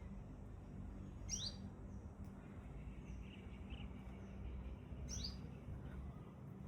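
A bird calling twice, each call a quick sharp note sweeping upward in pitch, about four seconds apart, over a steady low hum.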